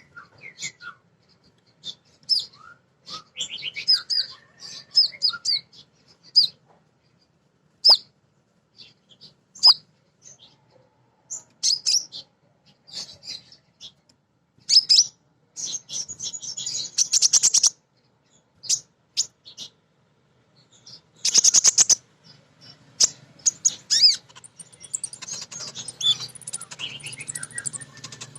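Female kolibri ninja sunbird calling: many short, high chirps in irregular runs, with bursts of rapid twittering and a few sharp clicks between them.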